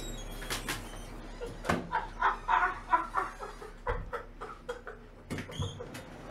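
A door handled as someone walks out of a small office: a few short knocks in the first couple of seconds, then a run of short, faint pitched sounds in the middle.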